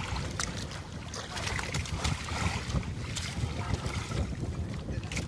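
Wind rumbling on the microphone, with scattered light clicks and rustling from a fishing net being pulled through the hands to free caught sardines.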